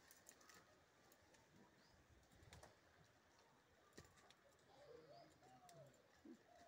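Near silence outdoors: a few faint soft knocks, and from about five seconds in a bird calling faintly in wavering notes.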